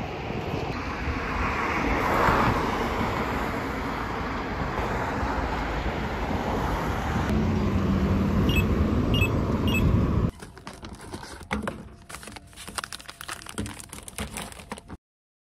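Street traffic: passing cars with a steady road hiss, one passing loudest about two seconds in. About eight seconds in, a pedestrian crosswalk push button gives three short chirps as it is pressed. After about ten seconds the traffic stops abruptly, leaving a quiet room with small knocks and rustles.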